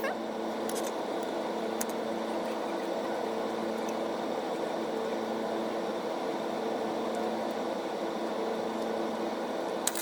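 Steady machine hum, like a fan or motor running, with a few faint sharp clicks.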